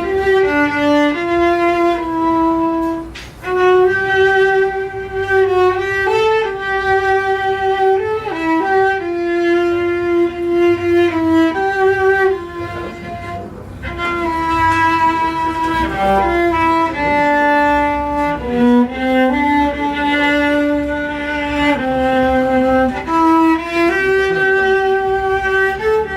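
Background music: an instrumental break with a violin playing a slow melody of long held notes over a low accompaniment.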